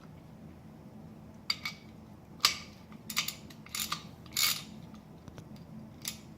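Irregular metal clicks and short rasping bursts from a freshly repaired Craftsman ratchet wrench being handled and worked, with the sharpest click about two and a half seconds in.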